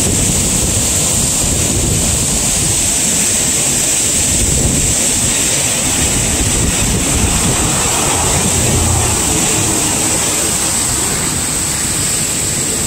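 River rapids in spring runoff rushing through a rocky gorge: a loud, steady roar of whitewater, with wind gusting on the microphone now and then.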